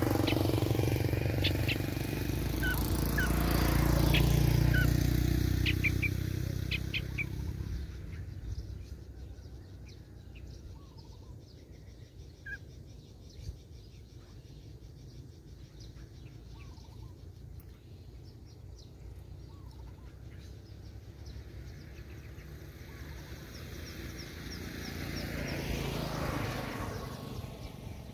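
A motor vehicle passing: a low rumble that swells and then fades over the first several seconds. A second vehicle rises and fades near the end. In the quieter stretch between them there are a few short bird chirps.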